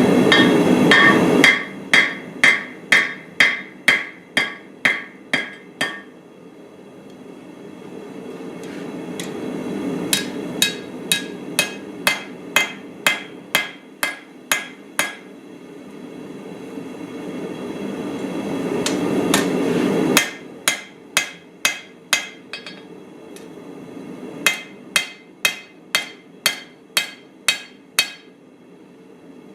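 Hammer forging a small steel cleaver blade on an anvil: four runs of sharp, ringing blows, about two to three a second. A steady low rushing noise runs underneath, swelling before the first and third runs.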